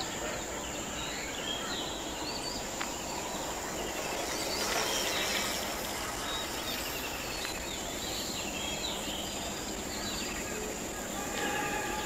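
Outdoor ambience: birds chirping over a steady background hiss, with a thin, steady high-pitched whine.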